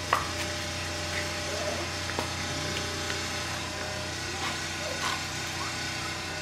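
Steady low machine hum, with puppies giving a few faint whines and a sharp knock just after the start.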